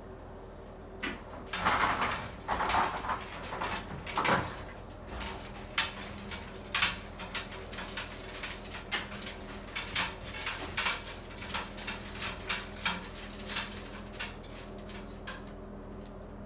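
Metal egg-tray rack of a large cabinet incubator being moved, with loud rattling and scraping for a few seconds, then a run of irregular clanks and clicks, about one or two a second. A steady machine hum runs underneath.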